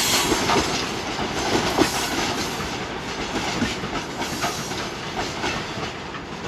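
Wheels of a freight train's open coal wagons clattering and knocking on the track as the last cars pass and draw away, the rumble fading steadily.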